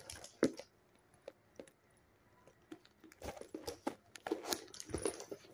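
Clear plastic wrapping rustling and crinkling as a new handbag and its strap are handled, with a sharp click about half a second in and denser rustling from about three seconds in.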